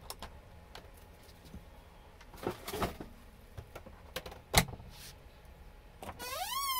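Giant Schnauzer whining at a squirrel up a tree. There is a sharp knock about four and a half seconds in, then near the end one long whine that rises and falls in pitch.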